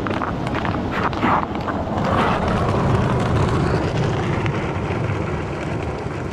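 Heavy wind rumble on the microphone, mixed with the scrape and clatter of loaded ice-fishing sleds being dragged across bare glare ice, with a few sharp knocks about a second in.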